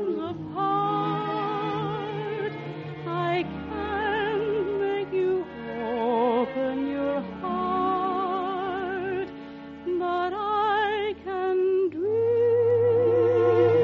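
Orchestral music from an old radio transcription in an operatic style: a slow melody of long notes with wide vibrato over sustained low notes, broken by short pauses between phrases. A louder held note starts near the end.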